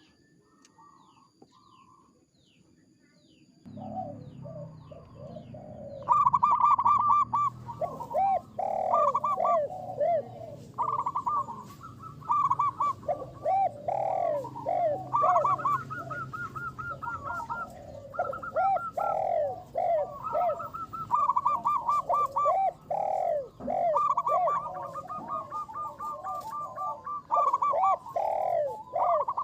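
Zebra doves (perkutut) cooing: rapid series of short, rising-and-falling coo notes in repeated phrases, starting loudly about six seconds in after a quiet opening with faint high chirps.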